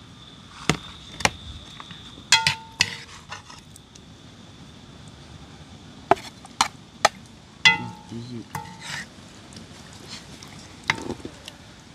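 Serving utensil clinking and knocking against a pot and plates as curry chicken back is dished out: about ten sharp, irregularly spaced clinks, some of them ringing briefly.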